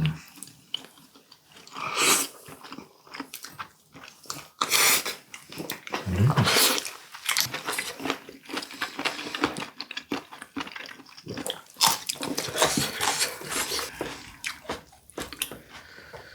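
People chewing and biting boiled duck meat, with many irregular short clicks and smacks.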